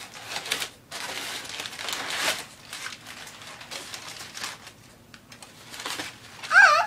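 Brown wrapping paper crinkling and tearing as a present is unwrapped, loudest in the first two seconds or so and quieter rustling after. Near the end comes a short, loud, wavering high-pitched call.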